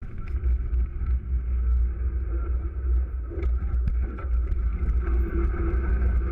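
Wind buffeting the microphone of a camera on a moving bicycle: a heavy, uneven low rumble, with faint clicks and rattles from the bike.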